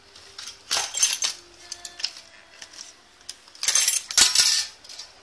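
Clear plastic packaging and cardboard box of a diecast model airliner being handled, in two bursts of crinkling and rustling, about a second in and again around four seconds in.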